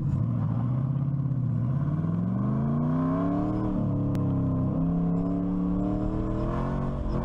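LS V8 engine of an Exomotive Exocet autocross car under hard acceleration. The revs hold for a couple of seconds, climb, dip sharply about four seconds in, then climb again more slowly.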